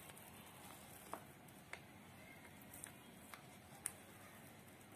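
Near silence with a handful of faint, separate ticks and taps: a spoon scooping thick coconut-cocoa mixture in a bowl.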